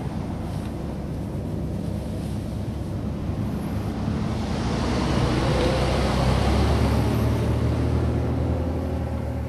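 A motor vehicle's engine running with a steady low rumble that grows louder around the middle and then eases off.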